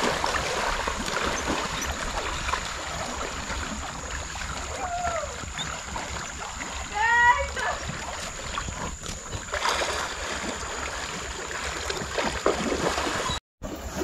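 Horses wading through a swollen, fast-flowing creek, with water splashing and rushing around their legs. A short pitched call sounds about five seconds in, and a louder one about seven seconds in.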